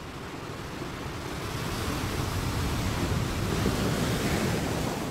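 Ocean surf washing onto a beach: a steady rushing hiss that swells over the first few seconds and eases off near the end.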